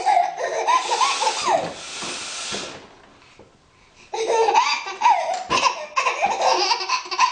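A loud nose blow, a long hissing blast with laughter over it, ending a little under three seconds in. After a brief quiet, a baby's belly laughter starts about four seconds in and goes on to the end.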